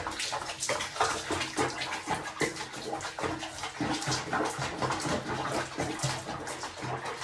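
Water splashing and sloshing in a basin of soapy bathwater around a bathing cat, in many short irregular splashes.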